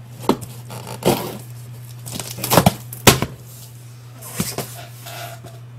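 A blade slitting the packing tape along a cardboard box's seam, then the box's cardboard flaps being pulled open, with a few sharp scrapes and taps.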